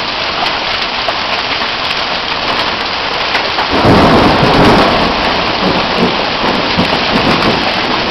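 Heavy rain falling steadily. About four seconds in, a loud clap of thunder breaks in and rumbles away over the next few seconds.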